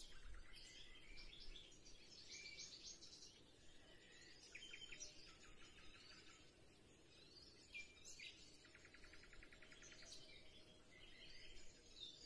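Faint songbirds chirping, with scattered short calls and several rapid trills over a low background hiss.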